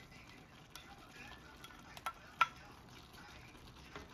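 Diced carrots tipped into a nonstick frying pan of simmering chopped bopis and stirred in with a spatula. A faint sizzle runs under a few sharp clicks of the bowl and spatula against the pan, the loudest about halfway through.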